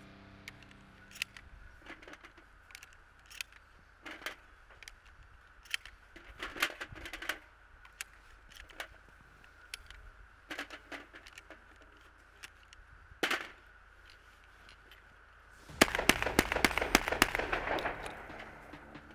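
Sharp metallic clicks as 12-gauge shells are pushed one by one into the magazine of a Panzer Arms M4 semi-automatic shotgun. Near the end, the shotgun fires a rapid string of about six shots in roughly two seconds.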